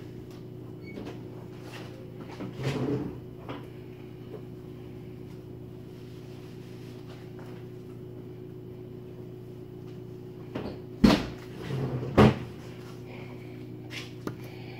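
Oven door being handled to take out the casserole, with two sharp knocks about a second apart near the end, over a steady background hum.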